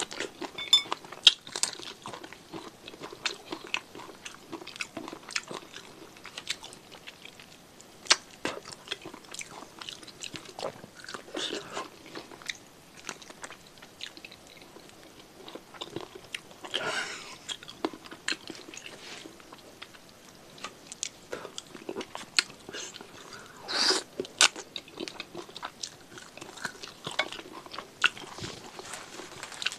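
Close-miked chewing and biting of chicken feet off a satay skewer: many small wet clicks and crunches of skin and cartilage, with a few louder mouth noises spread through.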